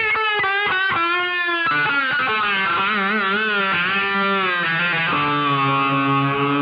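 Soundtrack music led by a distorted electric guitar playing a melodic line of bending, wavering notes that settle into long held notes near the end.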